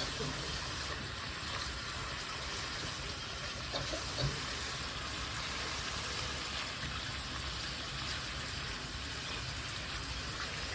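Steady hiss of water running from a tap, with a couple of faint knocks about four seconds in.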